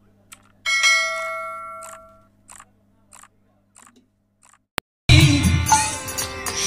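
A bell-like notification chime rings once and fades away over about a second and a half, followed by a few soft clicks. About five seconds in, kirtan music with harmonium and khol drum starts abruptly.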